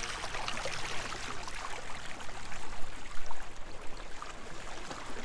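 Water splashing and sloshing in a busy run of small, irregular splashes, as a person wades into spring water.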